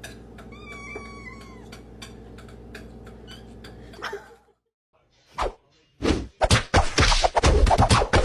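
A domestic cat meows once, briefly, over a steady low hum, with a few faint clicks. After a short silence there is a single thump, then a rapid run of loud knocks and clatter near the end.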